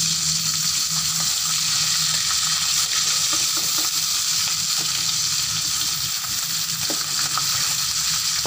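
Small whole fish frying in hot oil in an aluminium wok: a steady sizzle, with a few faint clicks from the metal spatula turning them.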